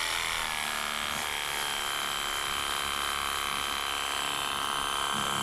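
Ingco 20V cordless pressure washer running steadily on its zero-degree nozzle: the motor-driven pump whines under the hiss of the water jet.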